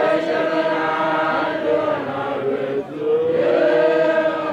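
Group of voices chanting together in long held notes. The chant breaks off briefly just before three seconds in, then a new held phrase begins.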